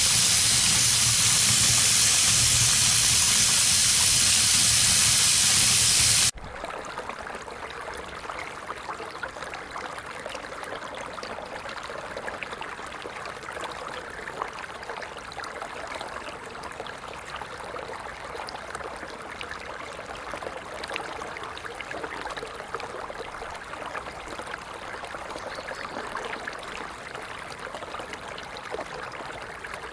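Tap water running full into a sink, a loud steady rush that cuts off abruptly about six seconds in. It is followed by a much quieter shallow stream flowing and trickling.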